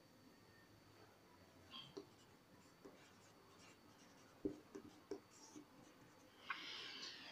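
Marker pen writing on a whiteboard, faint: scattered taps and short strokes, with a longer scratching stroke near the end.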